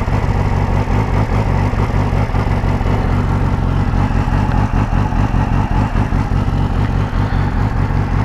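2009 Yamaha R6 inline-four with an aftermarket M4 exhaust idling steadily.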